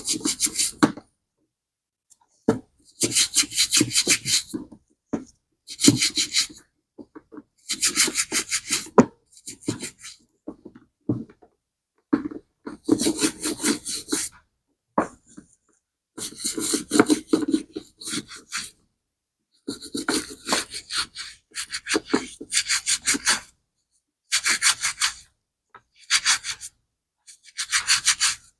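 Rapid back-and-forth scrubbing in about a dozen short bursts of a second or two, with pauses between: cleaning a bag strap's metal hardware.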